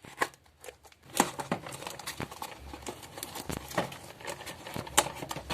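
A Beyblade's packaging being opened and handled: crinkling and rustling with many small clicks and taps.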